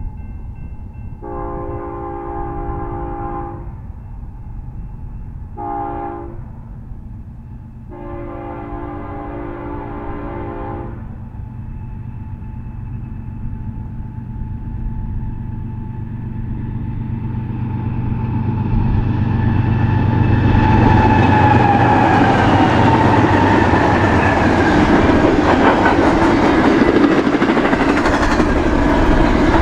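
Diesel locomotive air horn sounding three blasts, long, short, long, as a BNSF double-stack intermodal freight train approaches. The engine rumble grows, and from about 20 seconds in the locomotives and then the stack cars pass close by with loud wheel and rail noise.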